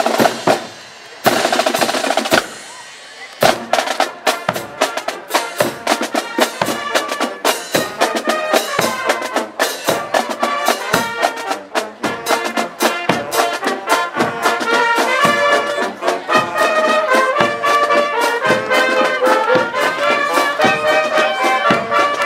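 Police marching band playing: drums open with two brief breaks in the first few seconds, then keep a steady marching beat. Brass joins with the melody about seven seconds in and grows fuller toward the end.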